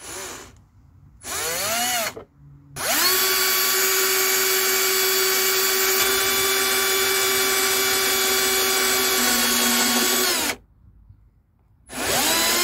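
Electric drill with a multi-step drill bit cutting a vent hole through the plastic wall of a waste-water tank. Two short bursts, the second rising in pitch as the motor spins up, are followed by a steady run of about eight seconds. The drill stops, then starts again near the end.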